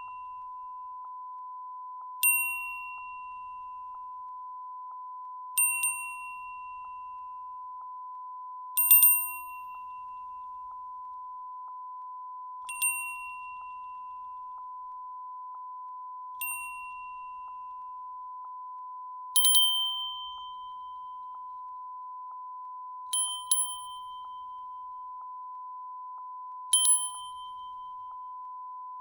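Japanese wind chime (fūrin) ringing irregularly in a breeze: single clear rings every three to four seconds, a few struck twice in quick succession, each fading over about a second, the later ones a little higher in pitch. A steady beep tone runs underneath, laid over the sample as a watermark.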